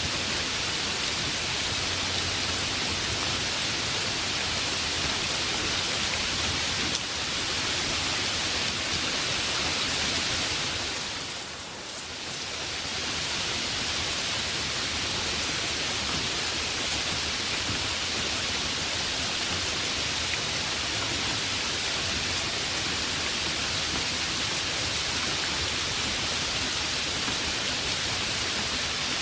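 Heavy rain falling steadily as a dense, even hiss. It dips in loudness for about a second around twelve seconds in, then comes back as before.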